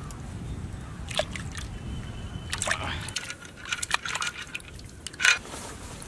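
Goat intestines being squeezed and rinsed by hand in a steel pot of water: wet sloshing and squishing in irregular bursts, the loudest splash a little past five seconds in.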